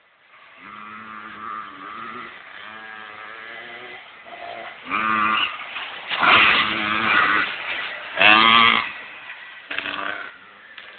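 A child's small motocross bike engine revving: a steady buzz comes in about half a second in, then the throttle is opened in several loud bursts in the second half, each rising and falling in pitch.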